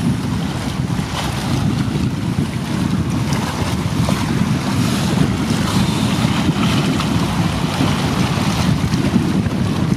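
Wind buffeting the microphone as a steady, fluctuating rumble, over the wash of choppy sea water.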